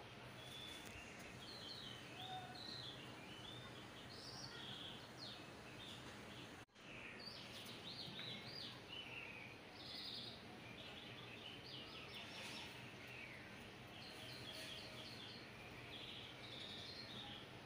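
Faint birdsong: many short chirps and twittering trills from small birds over a steady low hiss. The sound cuts out for an instant about seven seconds in.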